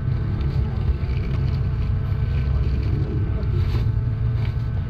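Steady low rumble beneath faint voices of a crowd.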